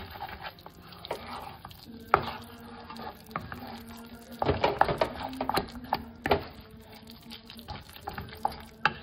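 A spatula stirring and turning a thick vegetable mash in a non-stick wok, with irregular scrapes and knocks against the pan that come thickest a little past the middle.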